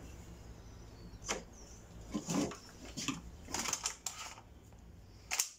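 Irregular plastic clicks and rattles, a handful spread over a few seconds with a sharper click near the end, as a toy gel-bead blaster and its parts are handled.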